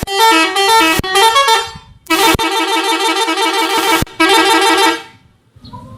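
Indonesian 'telolet' bus horn playing a tune of stepping multi-tone notes in three loud runs, with a few sharp clicks between notes; it stops about a second before the end.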